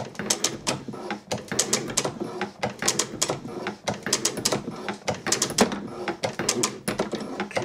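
Drummond Mk2 hand shaper worked by its hand lever, the ram stroking back and forth as the tool cuts a rough steel block: a run of sharp metallic clicks and clatter from the cutting tool and the shaper's feed mechanism on each stroke.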